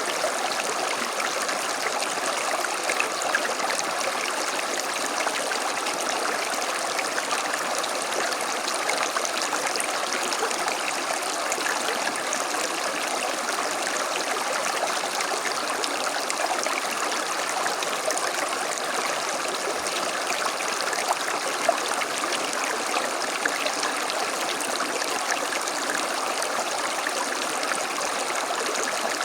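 A small stream running and babbling steadily over stones.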